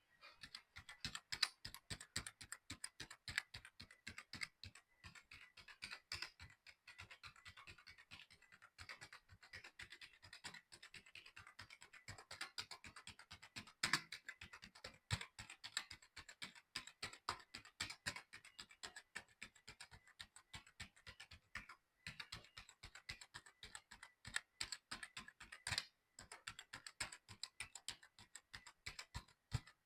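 Keys of a wireless computer keyboard pressed one after another, a quick, uneven run of light clicks with a brief pause about two-thirds of the way through.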